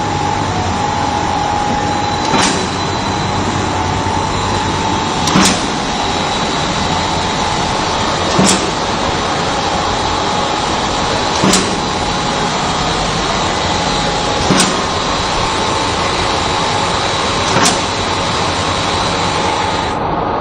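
Candy-bar forming line machinery running steadily, with a sharp clack about every three seconds from a cycling mechanism.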